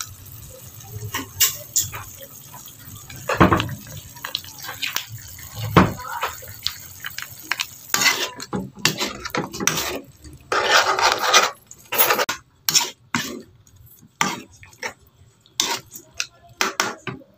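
A metal spatula scraping and knocking against a wok as chicken pieces are stirred together with tomato paste. The clanks and scrapes come at an irregular pace, thickest in the middle of the stretch.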